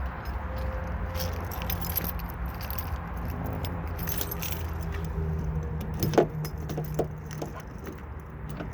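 Car keys jangling, then a sharp click about six seconds in and a few lighter clicks after it, over a steady low hum.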